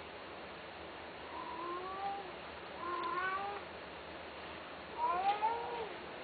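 A long-haired Persian-type cat meowing three times, each a short call that rises slightly in pitch; the third is the loudest.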